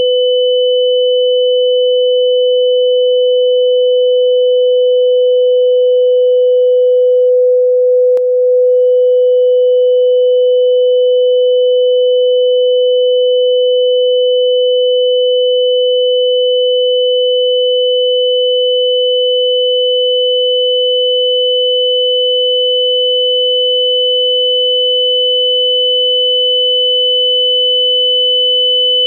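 Two steady electronic sine tones held together, one low and one high and whistling, simulating the ringing of tinnitus. The high tone drops out for about a second and a half starting about seven seconds in, with a faint click in the gap.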